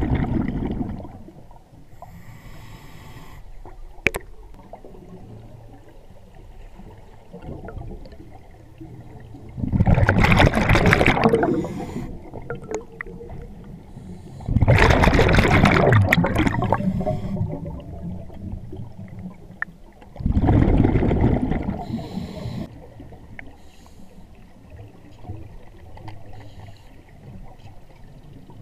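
Scuba diver breathing through an open-circuit regulator underwater: the exhaled bubbles rumble out in four bursts of about two seconds each, with quieter gurgling between them. There is one sharp click about four seconds in.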